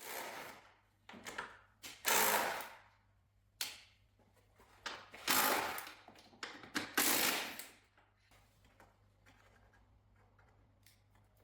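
Hand work on a car's front end: half a dozen short bursts of clicking and scraping as parts, clips and tools are handled, then near silence over the last few seconds.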